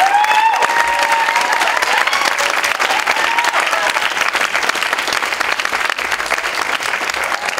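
Audience applauding with dense, steady clapping, a few voices cheering over it in the first second or two; the clapping eases slightly toward the end.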